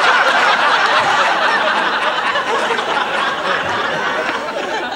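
Studio audience laughing at a punchline, a dense crowd laugh that gradually dies down near the end.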